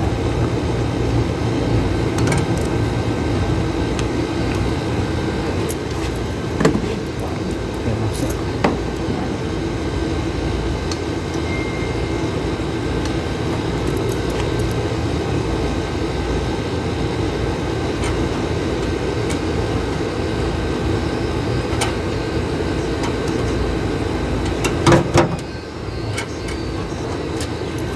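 Gree split-type air conditioner's outdoor unit running steadily, its hard-starting compressor kept going with the help of an added starting capacitor. A few short knocks sound, the loudest about 25 seconds in.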